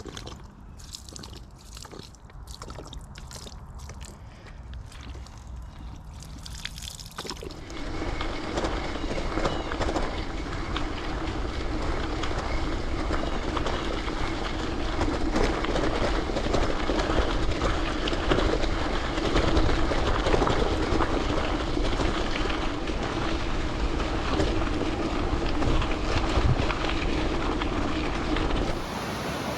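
Gravel bike on Teravail Sparwood tyres riding over a rough gravel road: a steady rattling rolling noise with wind on the microphone. It is quieter with scattered ticks for about the first seven seconds, then turns abruptly louder and rougher.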